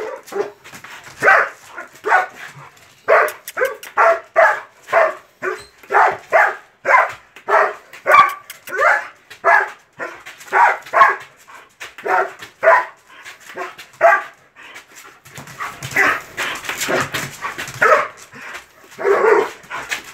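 German Shepherd barking aggressively, short sharp barks at about two a second. About three quarters of the way through, the barks grow rougher and run together.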